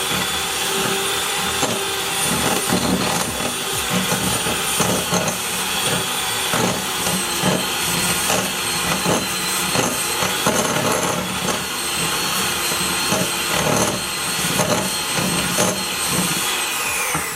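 Electric hand mixer running steadily at high speed, beating a cookie dough mixture in a bowl, with irregular knocks of the beaters against the bowl; the motor winds down at the very end.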